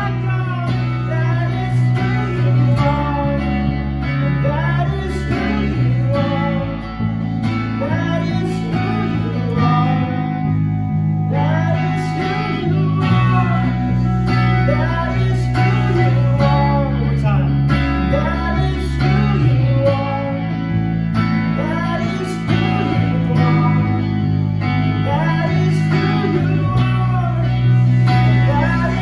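Live worship band playing, with guitar over held bass notes that change every couple of seconds.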